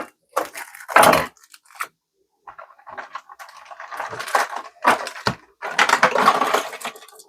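Plastic and cardboard packaging of a Pokémon Elite Trainer Box being handled and torn open by hand: irregular crinkling, rustling and scraping with a few sharp clicks, busiest in the second half.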